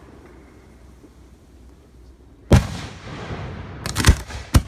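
Aerial fireworks bursting: a single loud bang about two and a half seconds in, then a quick cluster of cracks, and another sharp bang near the end.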